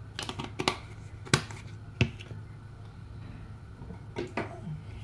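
Spice jars and their plastic lids being handled on a kitchen counter: a quick cluster of small clicks, then two sharper knocks, and a couple of softer taps near the end. A low steady hum runs beneath.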